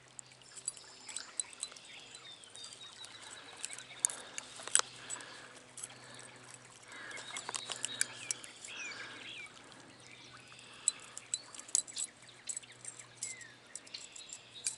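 Small birds chirping over a light trickle of stream water, with scattered sharp clicks and small splashes as a hooked brook trout is worked free with pliers; the loudest clicks come about four seconds in.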